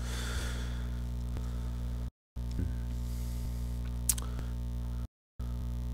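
Steady electrical mains hum with buzzing overtones on the audio line. It cuts out to silence twice for a fraction of a second. A single short click comes about four seconds in.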